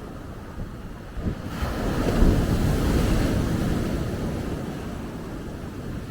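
Ocean surf on a beach: a wave's noise swells about a second in, peaks, then slowly fades as it washes out. Wind buffets the microphone with a low rumble.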